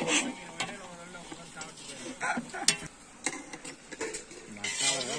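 Long-handled metal ladle stirring chicken pieces in a large aluminium cooking pot, with irregular scrapes and clanks of metal on the pot's side.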